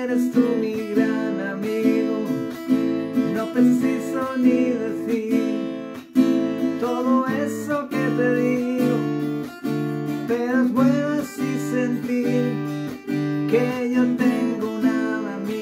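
Acoustic guitar strummed with a pick, playing steady chords with a low note about once a second, and a gliding melody line above the chords.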